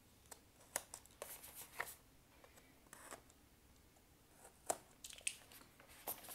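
Faint cardboard handling: the tuck flaps of card-deck boxes being pried open with a pen, giving a few scattered sharp clicks and short scrapes, the loudest about four and a half seconds in.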